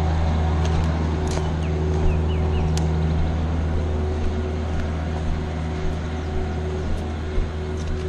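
An engine running at a steady speed, a constant hum with a few light clicks over it, fading slightly toward the end.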